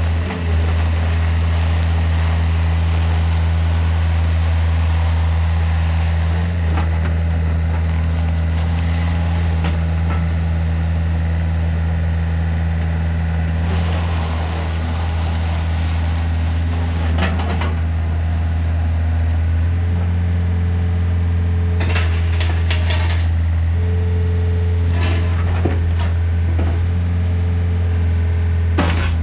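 Case CX50B mini excavator's diesel engine running steadily under load as the machine slews and works its boom and arm. A higher steady tone joins in from about two-thirds of the way through, and there are several sharp knocks near the end.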